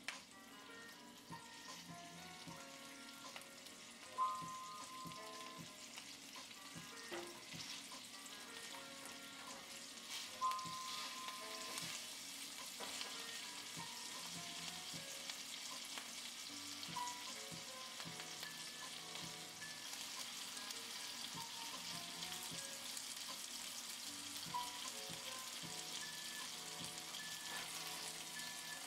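Fish steak sizzling in hot oil in a frying pan, a steady crackling hiss that grows fuller about twelve seconds in. Soft musical notes sound faintly over it.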